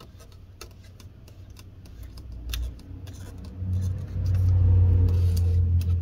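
Stretch-release adhesive strip being pulled out from under a laptop screen: small clicks and handling noise, then a louder low drone from about three and a half seconds in while the strip is stretched.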